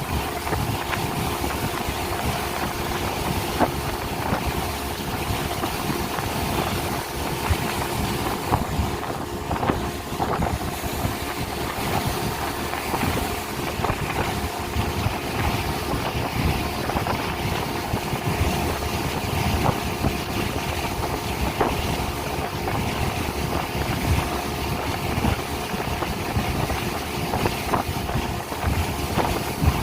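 Speedboat engine running steadily under way, with wind on the microphone and frequent short low thuds.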